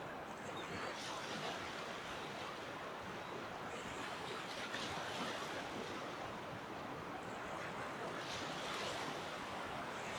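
Ocean surf washing onto a beach, the wash swelling and easing about every four seconds.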